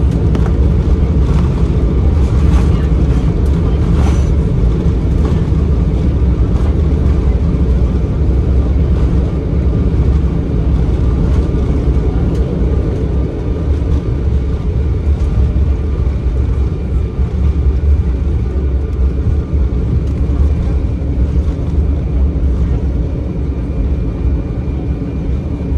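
Cabin noise of an Embraer E190 on its landing roll: a steady low rumble from the engines and the wheels on the runway, easing a little about halfway through as the aircraft slows.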